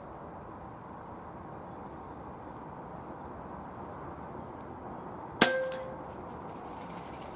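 Air Arms S410 pre-charged pneumatic air rifle firing once about five seconds in: a single sharp crack followed by a short metallic ring.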